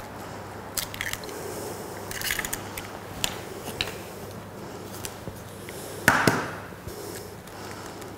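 Eggs being cracked into a plastic mixing bowl: a few light clicks of handling, then one sharper knock about six seconds in as an egg is tapped on the bowl's rim to crack it.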